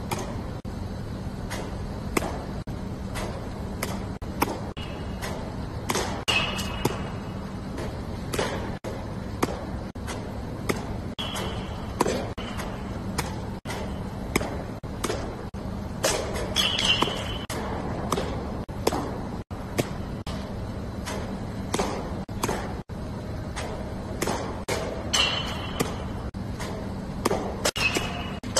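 Baseballs smacking into a catcher's mitt in quick succession, about once a second, over a steady low hum.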